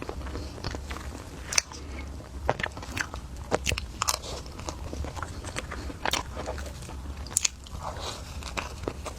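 Close-miked eating: biting and chewing with sharp, crisp crunches and wet mouth clicks, about ten spaced unevenly, over a low steady hum.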